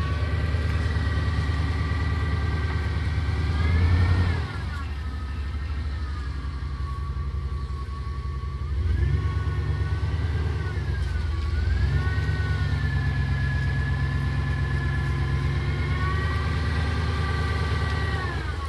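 Straight-piped 318 (5.2-litre) V8 of a Jeep Grand Cherokee ZJ working under load as it crawls up a steep dirt hill. The revs rise and fall a few times, about four seconds in, then around nine and twelve seconds, with a high whine that follows the engine speed.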